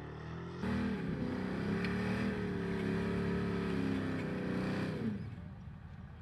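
Engine of a modified off-road 4x4 truck revving hard under load as its tires spin in mud. It is held high and steady, wavering slightly, for about four seconds, then drops off near the end.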